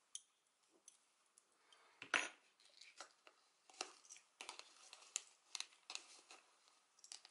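Faint handling of a plastic plant pot and a crocheted cover: a light knock about two seconds in as the pot goes into the cover, then soft scattered clicks and rustles.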